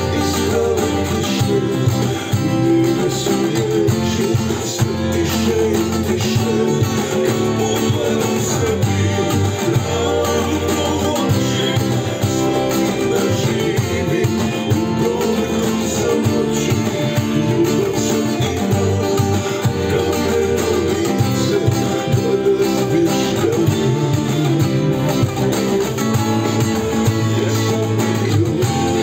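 Acoustic guitar strummed steadily without a break, playing the chords of a song in D minor.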